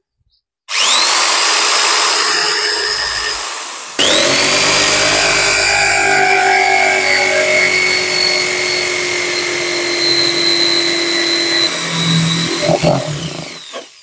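Electric drill with a hole saw cutting through the side of a plastic bucket. The motor spins up with a rising whine about half a second in and stops briefly around four seconds in. It starts again and runs steadily under load, then winds down near the end as the cut goes through.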